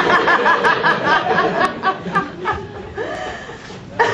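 Laughter: a quick run of rhythmic ha-ha pulses that thin out and fade about three seconds in.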